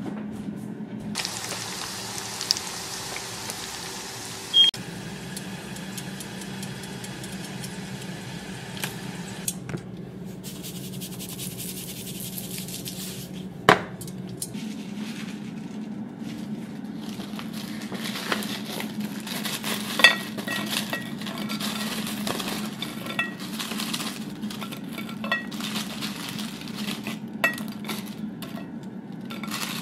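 Hot oil sizzling as fries fry, then dishes and utensils clinking and clattering, with a few sharper knocks and a steady low hum underneath.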